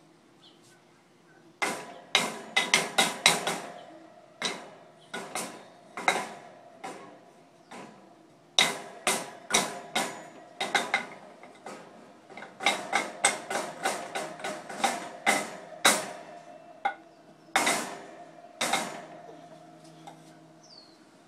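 Flat wooden sticks beaten on a folded metal wire crate as a makeshift drum: irregular clusters of sharp clattering hits, starting about a second and a half in and stopping a couple of seconds before the end.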